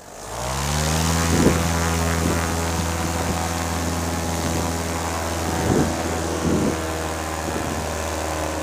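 Fresh Breeze paramotor's Simonini two-stroke engine and propeller throttled up from quiet: the engine pitch rises over the first half second, then holds at steady full power for the launch run. A few brief thumps sound over the engine.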